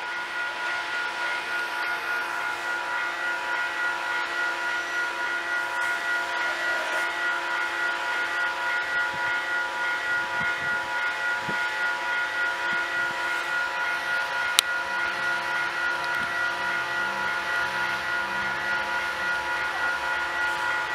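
Approaching CP freight train's lead diesel locomotives: a steady hum with a held whine of several tones, growing louder as they come closer. One sharp click about two-thirds of the way through.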